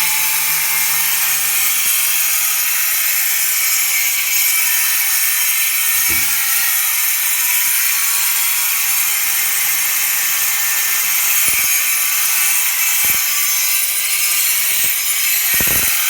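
Power cutting tool slicing through porcelain stoneware tile: a steady, loud, high-pitched grinding hiss that runs without a break.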